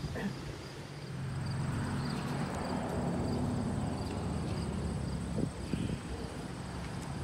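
Outdoor ambience: a low, steady engine hum, strongest in the middle, with crickets chirping in a regular rhythm.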